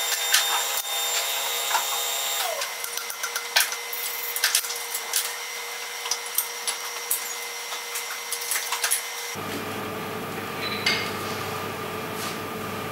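Schaublin 102N lathe running with a steady machine hum, with many sharp clicks and taps from work at the machine. About nine seconds in the hum changes and a lower hum comes in.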